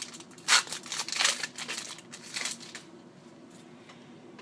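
A trading card pack's plastic wrapper being torn open and crinkled, a string of sharp crackles that stops about three seconds in.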